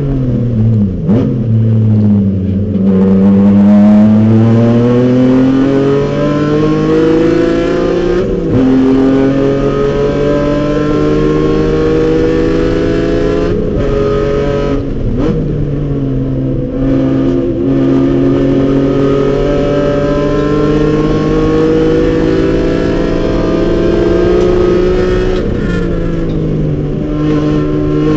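Race car engine heard from inside the cockpit at high revs, revving up through the gears in long rising pulls with a brief break at each shift. Its pitch drops several times as the car brakes and downshifts for corners, over steady wind and road noise.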